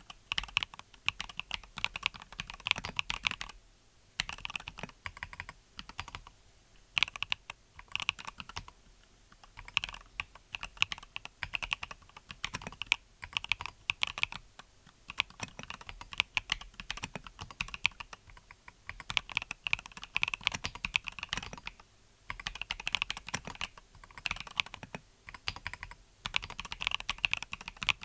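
Typing on a MelGeek Mojo68 mechanical keyboard fitted with Akko Cream Yellow V3 linear switches: runs of quick key clacks broken by short pauses every few seconds.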